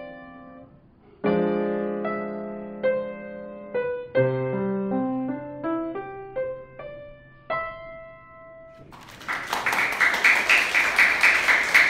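Upright piano playing a slow melody of single notes over held low notes, ending on a long held note. About nine seconds in, a burst of clapping starts, louder than the piano.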